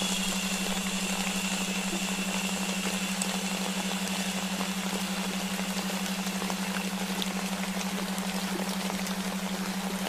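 Sleep soundscape of steady rain-like white-noise hiss over a low hum that pulses evenly. A higher shushing hiss sits on top and fades out about seven seconds in.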